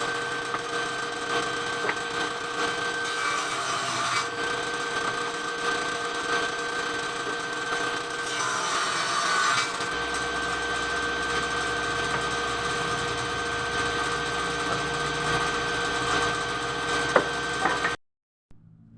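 Circular saw running and cutting through wood: a steady motor whine over the rasp of the blade in the timber. It cuts off suddenly near the end.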